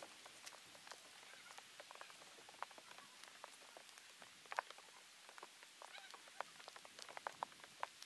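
Small twig campfire crackling: faint, irregular sharp pops, with one louder snap about four and a half seconds in.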